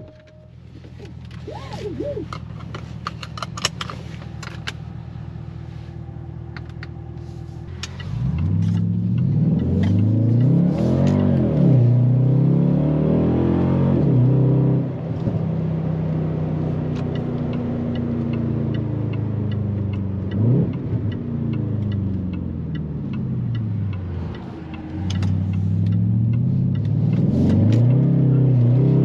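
Jaguar XFR's supercharged 5.0-litre V8 running at a steady low idle with a few clicks. From about eight seconds in it gets louder and revs up and falls back again and again.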